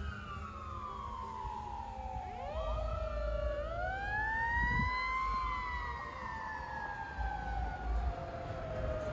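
Fire engine siren wailing in long, slow sweeps: the pitch falls, climbs again about three seconds in, peaks around the middle and then slowly falls away. A low engine and road rumble runs underneath.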